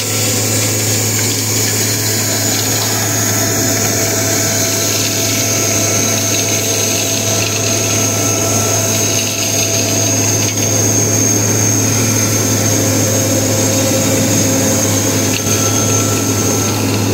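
Vacuum excavation truck running, air rushing steadily through its large suction hose, with a low hum and a high whine that drifts slightly lower in pitch.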